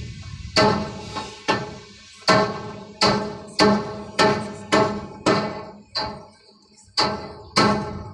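Hammer striking metal again and again, each blow ringing at the same pitch, about one and a half blows a second, with a short pause near the end.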